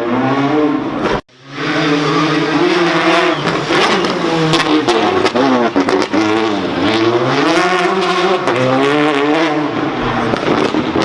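Rally car engine at high revs, its pitch rising and falling several times as it accelerates. The sound cuts out abruptly for a moment just over a second in, then comes back.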